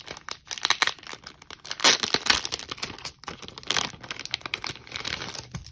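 Plastic packaging crinkling and crackling as it is handled, in irregular bursts, loudest about two seconds in and again a little later.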